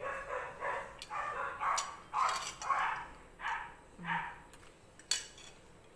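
A dog barking, a quick run of about a dozen short barks over the first four seconds before it stops. A single clink of a fork on a china plate comes about five seconds in.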